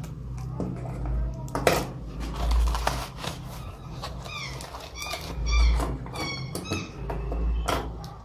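Brown paper and cardboard packaging rustling, crinkling and knocking as it is unwrapped by hand, with a steady low hum underneath. In the middle, a run of short high chirps sounds over the rustling.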